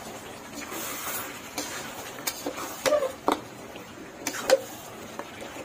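Metal spatula scraping and knocking against a cooking pot while stirring chunks of beef in oil and spices, with several sharp clinks, the loudest about four and a half seconds in.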